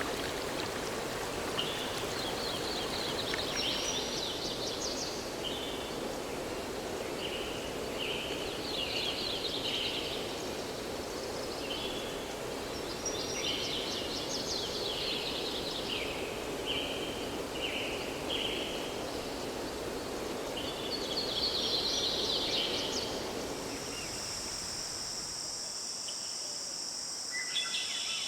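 Running water from a stream or waterfall, a steady rush, with a songbird singing short repeated phrases every few seconds. Near the end the water and bird stop and a steady, high chirring of crickets takes over.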